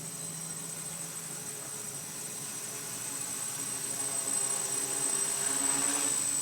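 Quadcopter's electric motors and propellers whirring in flight, their pitched hum growing louder from about four seconds in, over a steady high-pitched whine.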